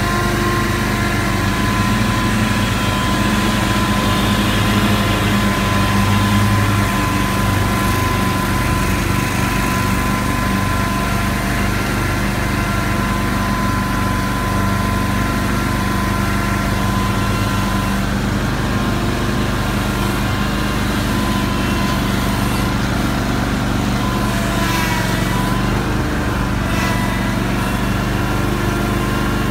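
Scag Cheetah 61-inch, 34-horsepower zero-turn mower running steadily under mowing load, a constant engine drone with a thin high whine held over it.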